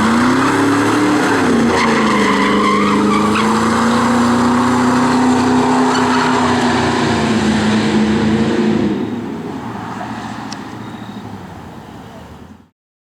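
Supercharged V8 of a 1999 Ford Lightning revving up and then held at high, steady revs with tyre screech over it, as in a burnout. About nine seconds in it drops away quieter, then cuts off abruptly.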